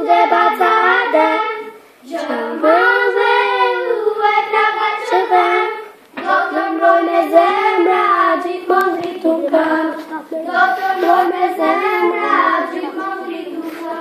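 A group of young girls singing a song together, in phrases with brief breaks about two and six seconds in.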